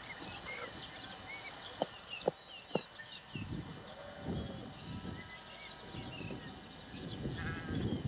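Sheep bleating, from about three seconds in. A little earlier come three sharp clicks from handling the electric fence's plastic standards and wire, and small high chirps run throughout.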